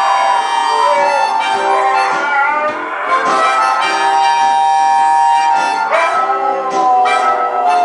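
Huskies howling along with a harmonica playing blues. The howls glide up and down in pitch over the harmonica's held notes, with a long falling howl about six seconds in.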